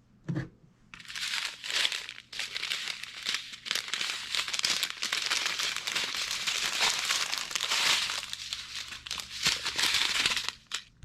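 Small plastic bags of diamond painting drills crinkling as they are handled, after a short thump just after the start.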